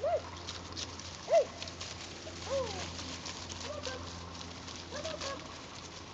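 Labrador puppies yipping and whimpering, short high cries that rise and fall, about one a second, the loudest about a second and a half in.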